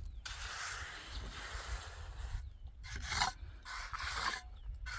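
Steel trowel scraping and spreading cement mortar on concrete blocks while a block wall is laid: a long rasping scrape, then shorter scraping strokes with brief pauses between them.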